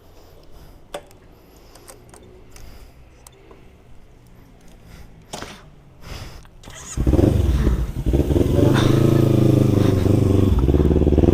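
A few light clicks and knocks, then about seven seconds in a motorcycle engine starts and runs steadily at a much louder level.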